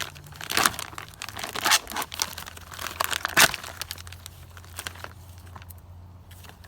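Plastic MRE packaging crinkling and rustling as it is handled and torn open, in a quick run of sharp rustles that thins out after about three and a half seconds.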